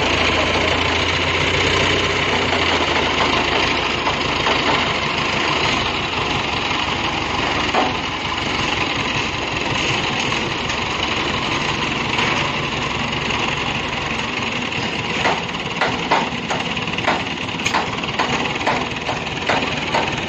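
Heavy machine engine running steadily. From about three quarters of the way in come a series of sharp knocks and clanks.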